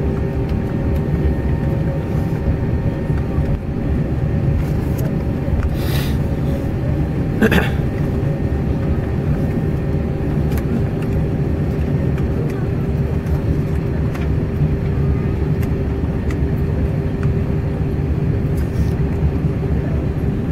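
Cabin noise of an Airbus A320 taxiing, heard from a window seat: the engines at idle give a steady low rumble with a steady hum over it. Two brief clicks or knocks come about six and about seven and a half seconds in.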